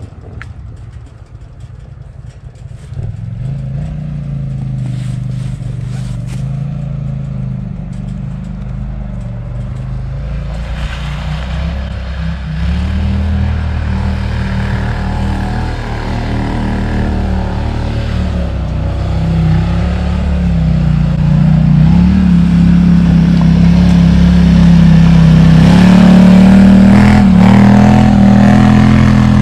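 Polaris Sportsman XP 1000 ATV's twin-cylinder engine pulling up a steep climb, its deep note rising and falling with the throttle and growing steadily louder as it comes closer, loudest near the end; it sounds like a monster truck.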